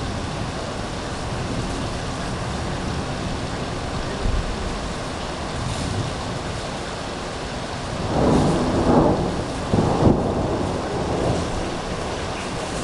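Heavy rain falling steadily in a thunderstorm. About eight seconds in, a louder roll of thunder rumbles for around three seconds, with a sharp peak near its end.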